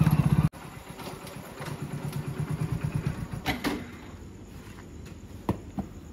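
Motorcycle engine running, cutting off suddenly about half a second in; a fainter low engine pulse follows for a few seconds. A brief high sound comes near the middle and a few sharp clicks near the end.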